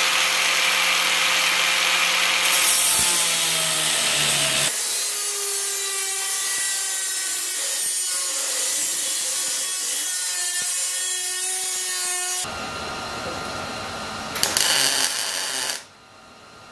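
Angle grinder with a cut-off wheel cutting through steel sheet. Its pitch and tone change abruptly about five and twelve seconds in, and the sound drops away near the end.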